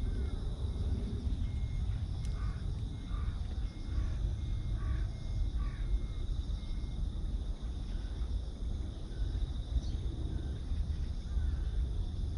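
A bird calling about five times in quick succession, over a steady low rumble.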